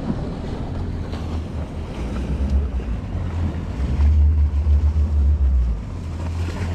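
Wind buffeting the microphone in uneven gusts, loudest from about four to six seconds in, over the steady wash of open sea around a boat.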